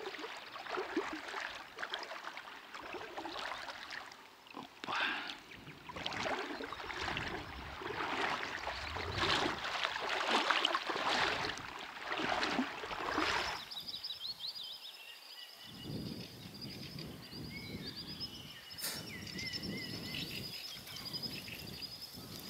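Uneven rushing noise that cuts off abruptly about thirteen seconds in. After it comes a quieter outdoor background with small birds chirping and trilling, and a single sharp click.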